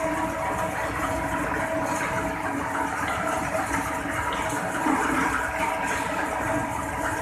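Petha gudai machine, a stainless-steel ash gourd pricking machine, running steadily as wet ash gourd cubes pass over its roller: an even mechanical whirr with a constant hum.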